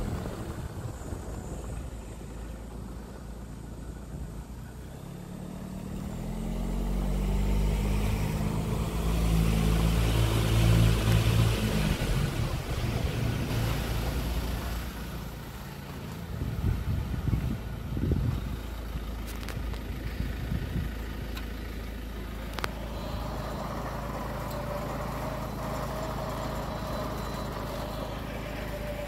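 Car engine running with tyres rumbling on a dirt road. About six seconds in the engine pulls harder and its pitch rises for several seconds, then it eases off to a steady low run as the car slows, with a few knocks from the road surface along the way.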